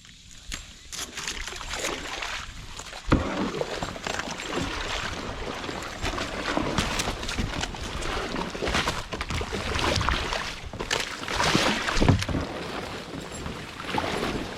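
Kayak being paddled through dense lily pads: a continuous rustling, splashing noise of paddle and pads against the boat, with a sharp knock about three seconds in.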